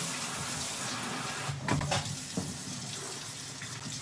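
Kitchen faucet running into the sink as soap is rinsed out of a pot, with a couple of sharp knocks of the pot against the sink about one and a half to two and a half seconds in.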